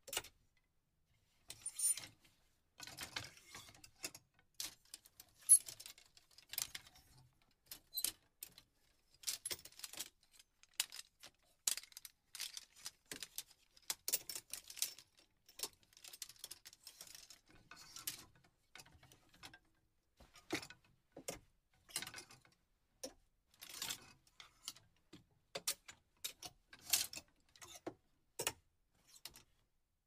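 Clothes hangers in a closet, clicking and clinking against each other in irregular bursts, with some short scrapes among the clicks.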